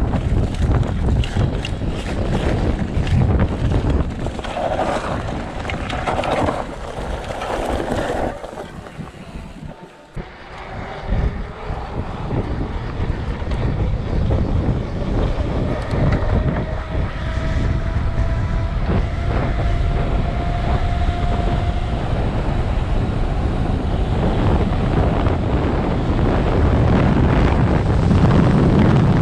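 Heavy wind rushing over the microphone of a vehicle moving at speed. About halfway through, a faint engine tone rises slowly under the wind.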